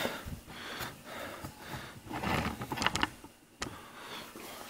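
Metal engine parts being handled on a workbench, a Clinton small-engine block turned by hand: light clicks, clinks and scrapes, with one sharp knock about three and a half seconds in.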